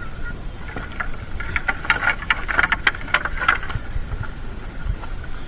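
A gill net being hauled aboard a small boat, with a dense run of quick clicks and rattles for about two and a half seconds from a second in, over a steady faint high hum.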